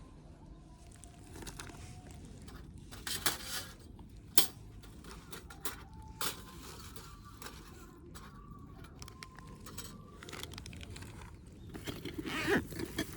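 Handling noises from camp cooking gear: scattered clicks and knocks, a few of them sharp, with a busier patch of rustling and clatter near the end.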